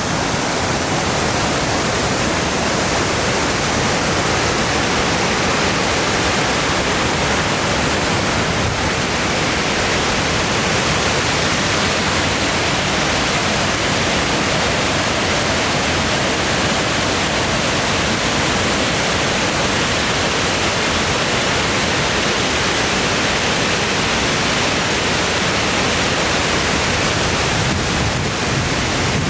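Panther Creek Falls, a waterfall, pouring with a steady, even rush of falling water.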